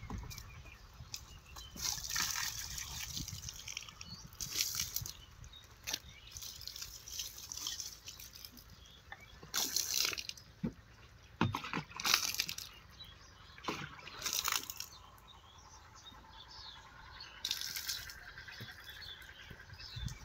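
Water poured in uneven spurts from a plastic jerrycan into a diesel pump set's centrifugal pump, priming it before the engine is started. A few sharp knocks come through partway through.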